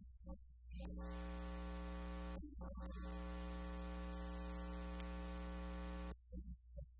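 Steady electrical mains hum with a buzzy stack of overtones, cutting out briefly about two and a half seconds in and again near the end.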